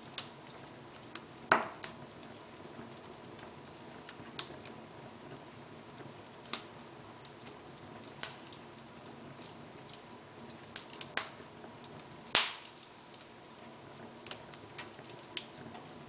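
Wood fire burning in an open fireplace: a low steady hiss with irregular sharp crackles and pops, two of them much louder, one near the start and one about three-quarters of the way through.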